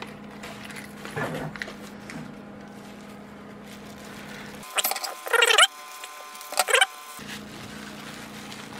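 Plastic bubble-wrap packaging being handled, with two loud bursts of crinkling and squeaking about five seconds and nearly seven seconds in; otherwise soft handling noises over a steady low hum.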